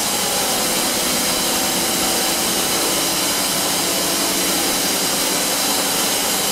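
Steady hiss and hum of running machinery in a carbon dioxide gas processing plant, even and unbroken, with a few faint steady tones under the hiss.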